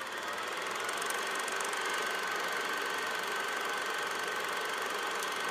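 Steady mechanical whirring and rattling with a faint high tone held through it, a sound effect under a title animation.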